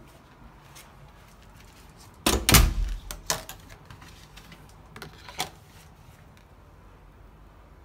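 A hotel room door thuds once, heavily, about two seconds in, followed by a few sharper clicks and knocks around its lever handle and latch.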